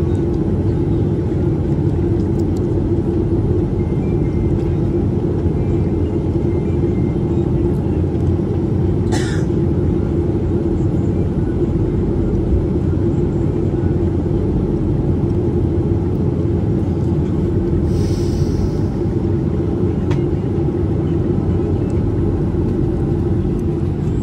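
Steady low rumble of a jet airliner's cabin while taxiing after landing: the engines at taxi power and the wheels rolling. A brief sharp click about nine seconds in and a short hiss about three quarters of the way through.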